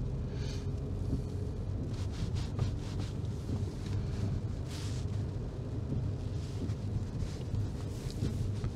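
Car's engine and tyres on a wet road, heard from inside the cabin: a steady low rumble, with a brief swish about five seconds in.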